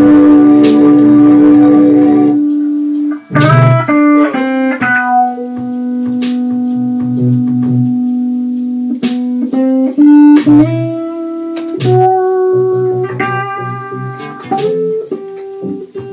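Instrumental jam music: an electric guitar holds a chord for about the first two seconds, then plays melodic lines with some pitch bends, over a steady ticking beat.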